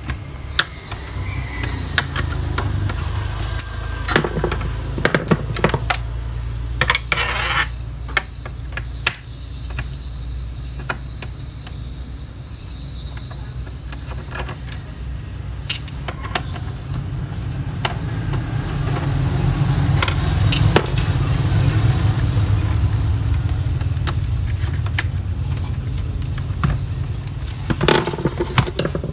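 Hard plastic clicks, taps and knocks of a Toshiba laptop's case being taken apart by hand with a screwdriver and pry tool, and the laptop being turned over. Under them runs a steady low rumble that swells about two-thirds of the way through.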